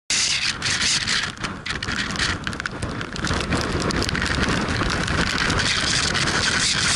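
Storm rain and wind on the camera's microphone: a dense, loud rush with many sharp ticks of raindrops striking the camera, gusting unevenly for the first few seconds and then steadier.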